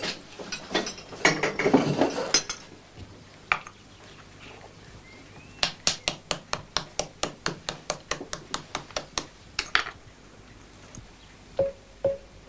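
A spoon tapping the shell of a boiled egg in a china egg cup, cracking it: about twenty quick, sharp taps at roughly five a second, lasting about four seconds.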